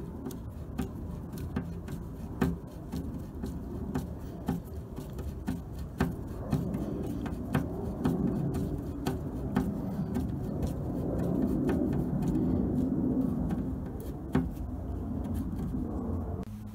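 Hand screwdriver turning a screw into a tapped hole in a steel grill lid: irregular clicks and a scraping rub from the threads and tool, growing louder in the middle.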